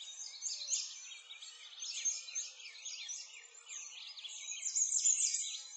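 Many songbirds chirping and singing at once, quick high chirps overlapping throughout.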